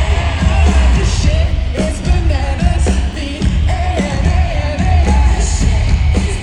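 Live band playing a pop-rock song loudly with a heavy bass and drum beat, a singer's voice carrying the melody over it.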